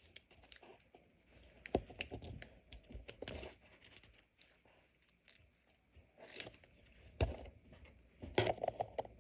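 Light, scattered handling noises: sticky tape crinkling and tearing, with a few soft knocks and clicks.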